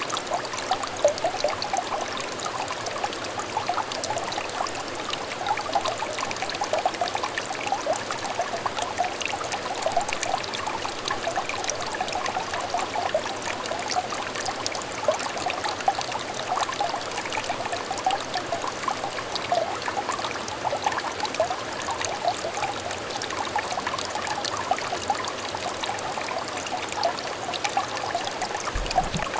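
Water trickling in a small clear stream: a steady, unbroken burble made of many quick little splashes and gurgles.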